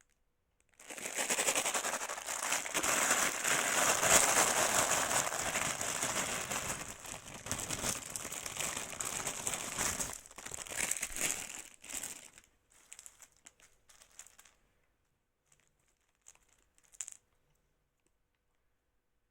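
Plastic crinkling and rustling, like a plastic bag or wrapper being handled, continuous for about eleven seconds, then thinning to a few scattered crackles that stop about seventeen seconds in.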